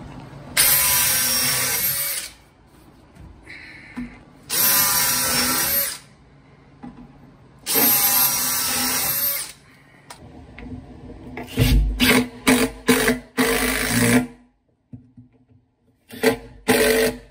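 Makita cordless drill driving screws down through the cabinet floor into the wooden toe kick: three runs of about a second and a half each, with a steady motor whine. Later come many short stop-start bursts from a Makita cordless impact driver seating screws.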